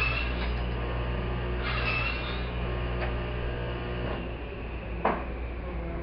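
Steady low electrical hum of an indoor room, with two brief scraping noises and a sharp click about five seconds in. Part of the hum stops about four seconds in.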